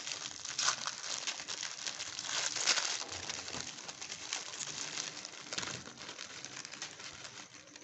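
Crinkly plastic biscuit wrappers being crumpled and torn open by hand: a dense crackling rustle, loudest about a second in and again around two and a half seconds in.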